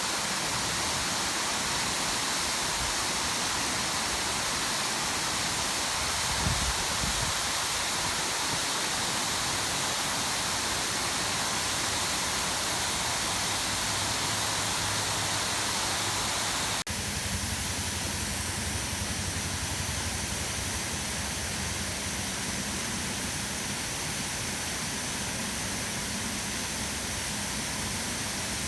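Mountain waterfall rushing: a steady, dense roar of falling water. It drops out for an instant about seventeen seconds in, then goes on with a slightly different tone.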